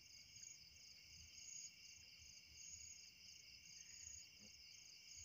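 Faint, steady, high-pitched chorus of night insects, several even trilling tones.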